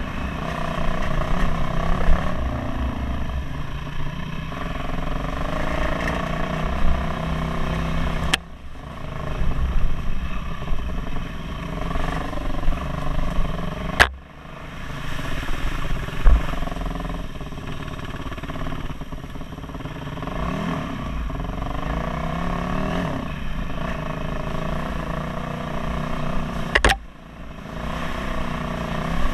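Dirt bike engine running, its pitch rising and falling with the throttle on a rough trail. Three times, a sharp click is followed by a sudden brief drop in the sound, at about 8, 14 and 27 seconds.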